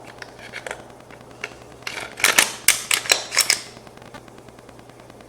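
Sharp plastic-and-metal clicks and clacks of a Glock 17 Gen 5 pistol being handled during reassembly. A few light clicks come first, then a quick run of louder clacks about two to three and a half seconds in.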